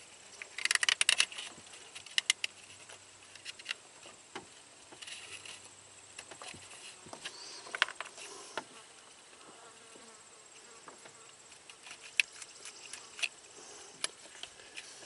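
Plastic wiring-harness loom and wires being handled and probed: a quick run of crackling clicks about a second in, then scattered single ticks and rustles.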